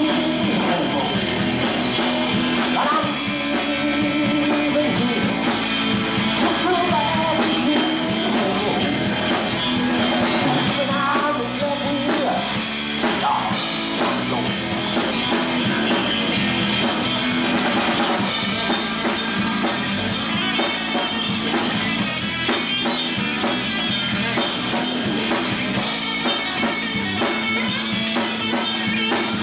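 Live rock band playing: electric guitar, electric bass and drum kit, with a man singing over them.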